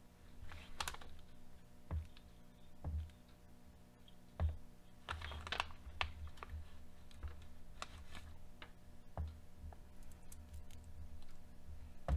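Irregular light clicks and taps of small screws, washers and plastic parts being handled on a workbench, with a few short rustles, over a faint steady hum.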